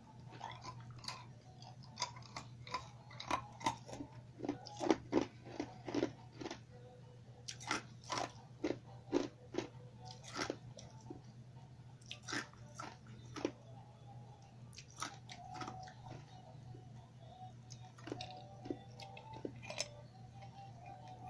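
Ice being crunched and chewed between the teeth: sharp, irregular cracking crunches that come in bursts with short pauses between them, over a faint steady low hum.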